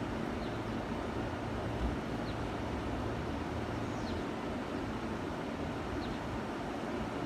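Steady ambient noise at an open-air railway platform, with faint short high chirps about every two seconds.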